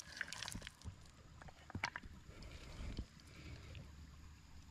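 Faint, scattered clicks and clatters of small creek stones and gravel knocking together as a hand picks through them, over a low steady rumble.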